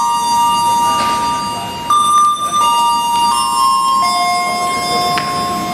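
A slow chime melody of sustained bell-like tones, one note at a time, each held for about a second before the next, over a faint low rumble.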